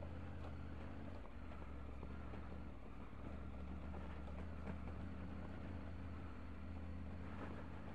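Triumph Tiger 900's three-cylinder engine running at steady low revs while the motorcycle is ridden along an off-road track, with a few faint ticks over the engine note.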